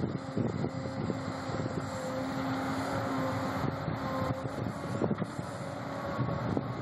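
Long-reach hydraulic excavator's diesel engine working under load with a steady pitched hum as the boom lifts the bucket out of the water, with a few short knocks.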